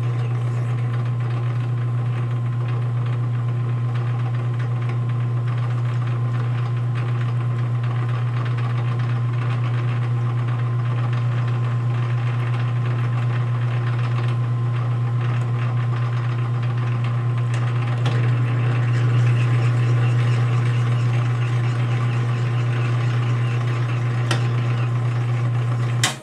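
Metal lathe running steadily under power feed while single-point cutting internal threads, the motor and gears giving a steady hum. It gets a little louder for a few seconds past the middle and cuts off abruptly at the end.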